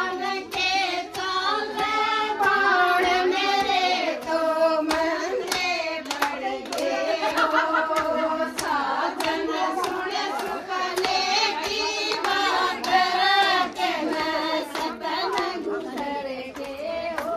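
Women singing a Haryanvi folk song with clapping in time: a sung melody throughout, marked by regular sharp handclaps.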